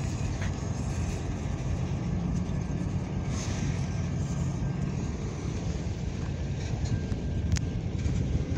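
Freight train boxcars rolling past at close range: a steady low rumble of steel wheels on rail, with a sharp click about seven and a half seconds in.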